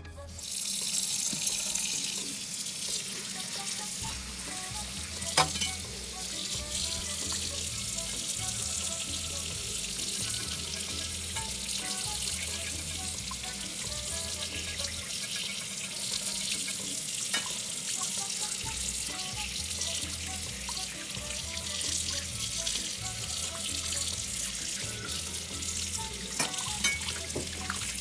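Tap water running steadily into a stainless steel sink and over a fish being rinsed by hand, with a few sharp knocks as the fish and knife touch the sink.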